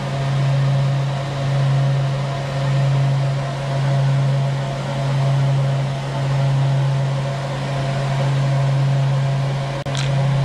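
Ventilation blowers running with a steady hum that swells and fades about once a second, keeping fumes out of a boat's engine compartment during fiberglass work. A short click near the end.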